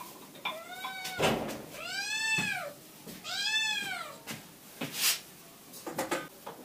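Kitten meowing three times, a short call then two longer ones that rise and fall in pitch, with a few sharp knocks in between.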